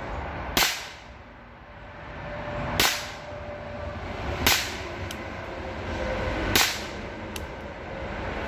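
Four shots from a Rohm RG20 .22 Short revolver fired double action, about two seconds apart, each a short sharp crack with hardly any sound to it. Two much fainter clicks fall between the later shots.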